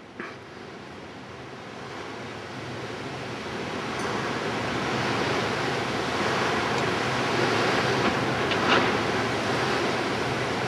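Steady rushing outdoor noise of wind on the microphone and distant sea surf, growing louder over the first five seconds, with a couple of faint clicks.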